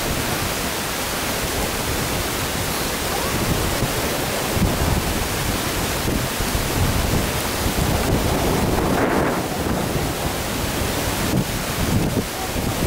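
Wind blowing across the camera microphone: a steady rushing hiss with uneven, gusty low buffeting.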